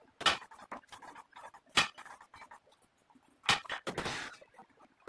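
Irregular short knocks, scrapes and rustles from a cooling-pad wall being fitted by hand at its top frame, with a longer noisy stretch about three and a half seconds in.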